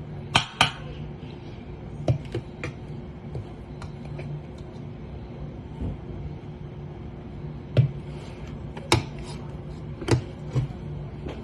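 Scattered sharp clicks and knocks of cookie dough being put onto a baking tray, the loudest a pair near the start and several more about eight to ten seconds in, over a steady low hum.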